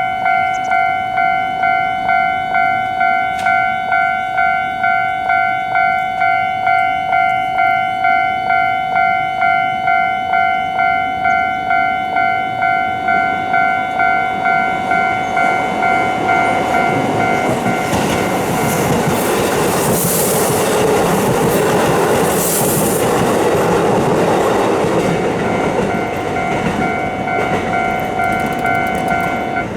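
Japanese level-crossing warning bell ringing its repeating "kan-kan" tone about twice a second while an electric train passes. The train's wheels clatter over the rails, building from about halfway through and loudest toward the last third. The bell cuts off at the very end as the train clears.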